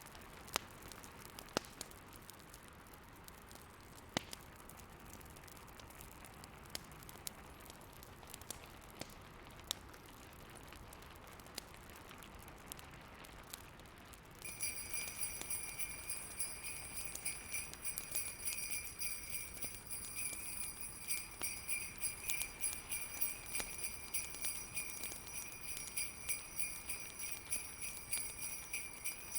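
Fireplace crackling, sharp scattered pops over a soft steady hiss. About halfway through, jingle bells start up and become the loudest sound, shaken in a steady rhythm, with the crackling still underneath.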